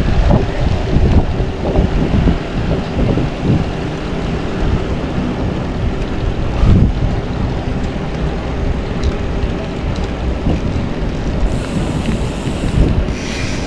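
Wind buffeting the microphone of a camera on a moving bicycle: a loud, gusty rush with a heavy low rumble, and a brief brighter hiss near the end.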